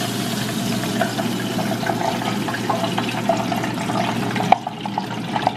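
Hot oil sizzling in a deep fryer, a steady hiss with scattered crackles and pops. About four and a half seconds in there is a sharp click, and the sizzle drops much quieter.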